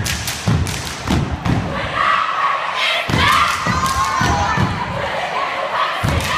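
Step team stepping on a wooden gym floor: a fast, rhythmic run of sharp stomps and claps, with a short break about three seconds in. A large crowd shouts and cheers over it.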